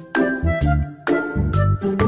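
Upbeat children's background music, with pitched notes over a bouncing bass line and struck note onsets at an even pace.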